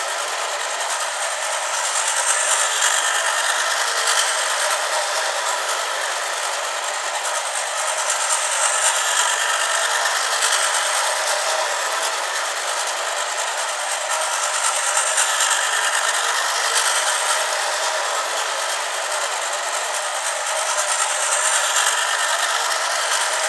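Battery-operated toy bullet train running on its plastic track: a continuous buzz of the small electric motor, with the wheels rattling. It swells and fades in a slow cycle, about every six seconds.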